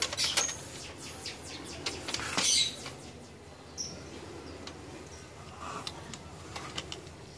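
Handling noise from an open metal rack-unit chassis being moved and turned on cardboard: a run of clicks and knocks in the first few seconds, with a louder rustling burst about two and a half seconds in, then only a few faint clicks.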